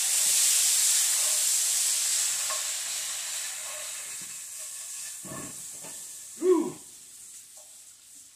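Green beans sizzling in oil in a frying pan, the sizzle slowly dying down. A short, louder sound comes about six and a half seconds in.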